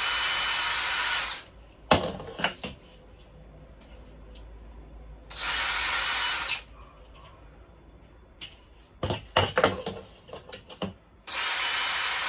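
Cordless drill running in three short bursts of about a second and a half each, drilling into plastic conduit trunking. Between the second and third bursts come sharp clicks and knocks as the trunking is handled.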